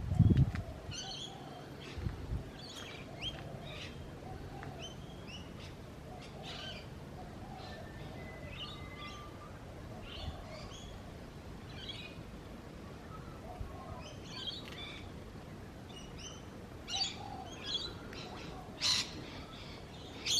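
Several small birds chirping and singing in an early-morning chorus, with short high calls overlapping throughout and one louder call near the end. A dull low thump at the very start.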